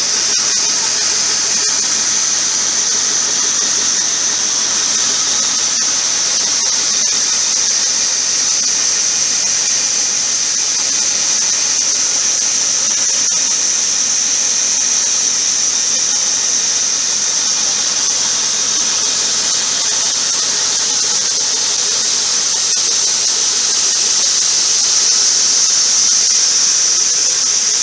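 Tractor-mounted mist sprayer running, its nozzles atomising liquid with a steady high-pitched hiss that swells slightly near the end.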